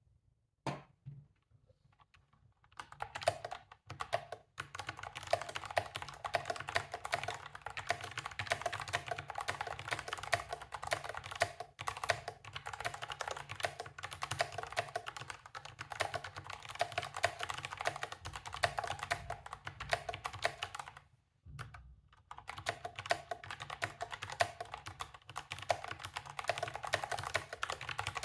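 Continuous typing on a Perixx Periboard 335 mechanical keyboard with stock Kailh Choc Brown low-profile tactile switches: a dense run of key clacks. It starts after a few lone keystrokes and pauses briefly about three-quarters of the way through before carrying on.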